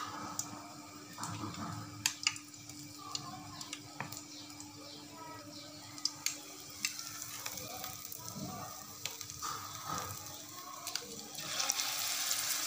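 Metal spoons clicking and scraping against a bowl as gram-flour batter is spooned over a chicken pakora. About eleven seconds in, the pakora goes into hot oil and a steady frying sizzle starts.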